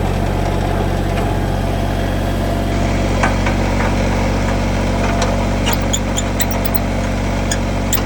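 Kubota BX23 tractor's three-cylinder diesel engine idling steadily. From about three seconds in, a scatter of light, sharp clicks and clinks sounds over the engine.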